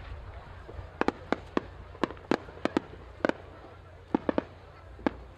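Aerial fireworks exploding: a string of about a dozen sharp bangs, starting about a second in, some coming in quick pairs and triplets.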